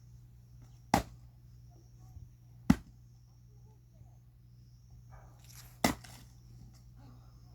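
Firewood being split with an axe: three sharp strikes, about a second in, near three seconds and near six seconds. The last one comes with a brief rustle and clatter of wood.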